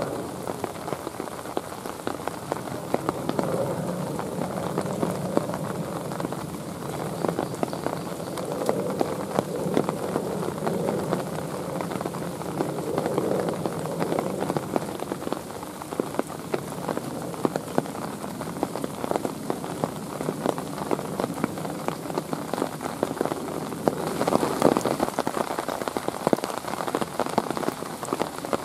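Steady rain falling, a dense patter of drops striking surfaces, growing a little louder about twenty-four seconds in.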